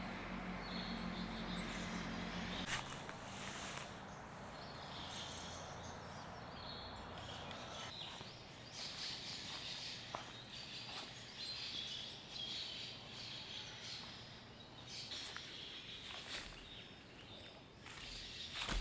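Birds singing on and off over a steady background hiss. A low steady hum stops about three seconds in.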